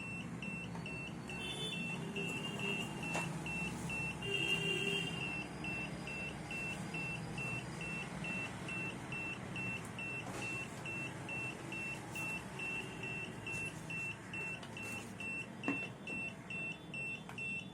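Carbon monoxide meter alarm beeping without a break, about three short high-pitched beeps a second, over a low steady hum. The alarm is going off at the carbon monoxide given off by burning cotton.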